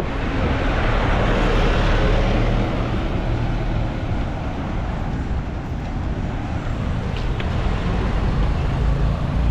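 Road traffic noise: a steady wash of vehicle engines and tyres with a low rumble, louder in the first couple of seconds, then easing a little.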